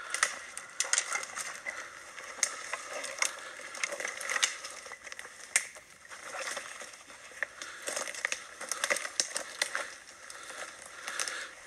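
Footsteps crunching through dry twigs, pine needles and leaf litter on a forest floor: an irregular run of snaps and crackles from several people walking quickly.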